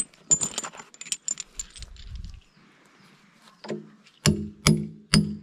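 Loose steel parts clinking as they are handled, then, from about two thirds in, a hammer striking steel in quick even blows, about two a second, each with a short ringing note: driving a vertical retaining pin into an excavator bucket tooth.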